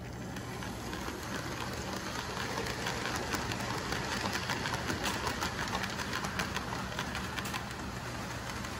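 Märklin HO model train's coaches rolling past on the track: a steady whir with rapid clicking of metal wheels over the rails. It grows louder through the middle as the coaches pass close, then eases off.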